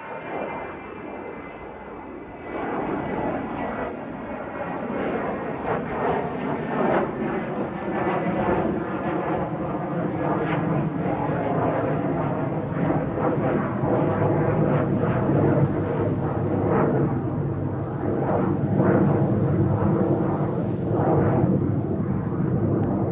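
A Hawker Beechcraft 400XP business jet's twin Pratt & Whitney JT15D turbofans at takeoff power. A high whine early on gives way to a broad jet roar that swells over the first several seconds and then stays loud.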